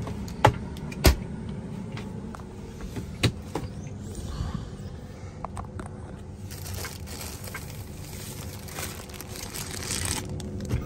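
Handling noises from making a sandwich: sharp knocks at about half a second and a second in and another about three seconds in, with light clicks and rustling between them, over a steady low hum.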